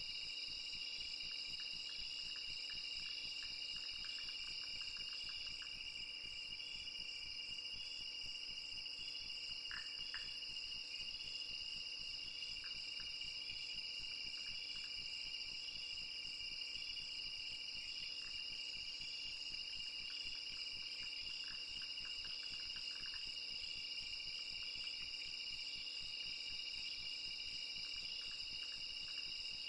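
Night insects, crickets among them, trilling in a steady high chorus, with faint scattered short chirps.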